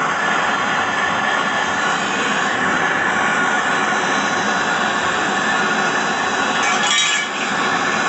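Handheld gas torch flame hissing steadily while brazing an access valve onto a refrigerator compressor's copper tubing, with a short clink about seven seconds in.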